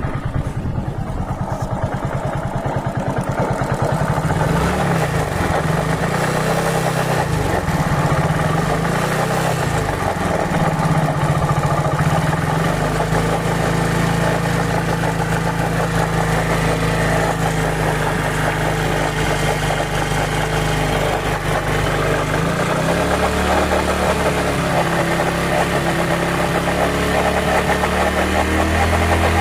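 Hero Glamour 125 cc single-cylinder motorcycle engine running, with an abnormal mechanical noise that the mechanic calls bad. It runs steadily, its pitch shifting a few times.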